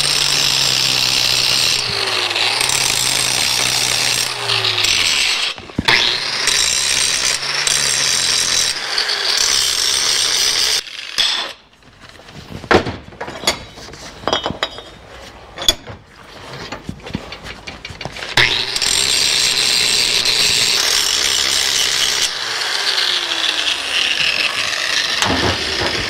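Angle grinder grinding and sanding the coped end of a steel tube clamped in a vise, dressing the cope to fit. It cuts out about eleven seconds in, leaving a few metal clanks and knocks while the tube is handled in the vise, then runs again from about eighteen seconds in until just before the end.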